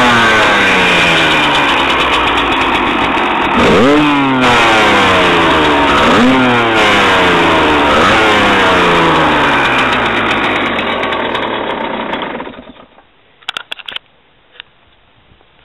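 2009 Husqvarna WRE 125 two-stroke enduro engine running, blipped four times with a sharp rise in revs that falls slowly back each time. It cuts off about three-quarters of the way through, leaving a few faint clicks.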